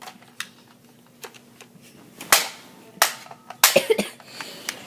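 Sharp plastic clacks and knocks from Nerf toy blasters being handled and set down: a few light clicks, then two loud knocks about two and three seconds in and a quick rattle of clacks near the end.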